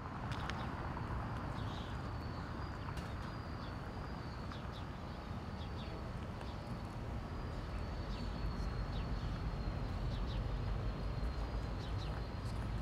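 Diesel locomotive's engine rumbling low as it approaches slowly with a freight train, growing a little louder near the end. Birds chirp over it, and a steady high tone runs underneath.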